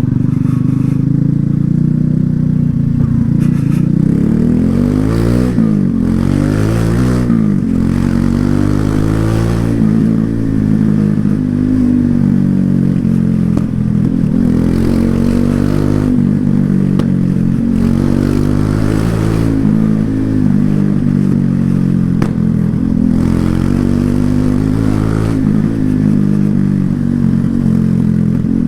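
Loncin LX250-12C 250 cc single-cylinder motorcycle engine and exhaust under way, its pitch repeatedly rising and falling as the throttle is opened and closed.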